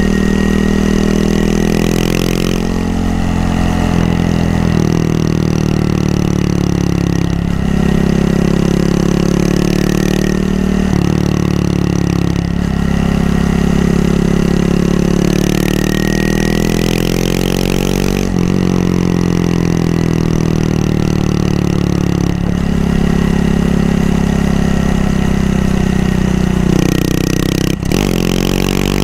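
Honda Monkey 125's single-cylinder four-stroke engine running on the move, its pitch rising, dropping and jumping again and again with gear changes and throttle. Wind rushes over the microphone at times.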